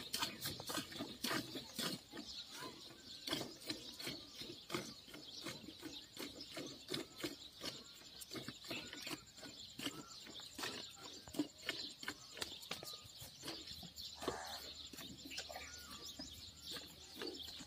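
Hand milking of a cow: the rhythmic swish of milk squirts hitting the frothy milk in a steel bucket, about two to three squirts a second, with faint high chirping behind.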